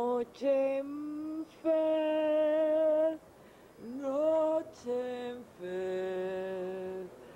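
A voice, or voice-like source, sounding a string of long wordless notes. Most are held steady for a second or more, a few slide up into the note, and short breaks fall between them.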